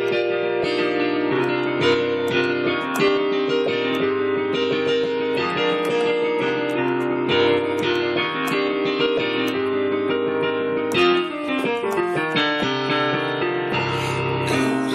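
Piano playing an instrumental passage: a steady stream of pitched notes and chords, without singing.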